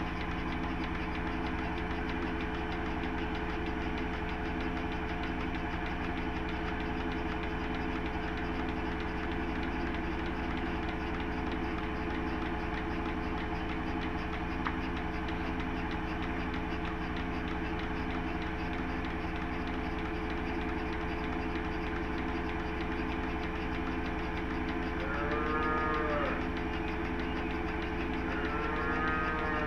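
Cattle mooing twice near the end, each call about a second long and rising then falling, over a steady machine hum that carries a regular pulse about once a second.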